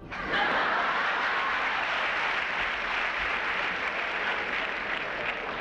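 Audience applause that breaks out all at once and keeps up steadily.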